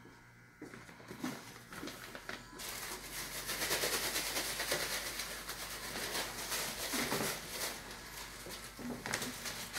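Plastic bag of shredded cheese crinkling and rustling as a hand rummages inside it, starting about two and a half seconds in.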